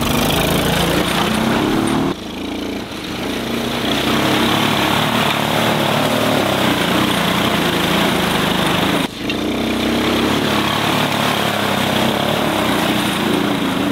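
Small engine of a kids' ride-on tractor running steadily under load as it drives through a deep puddle, with water splashing and spraying from the wheels. The sound breaks briefly twice, about two and nine seconds in.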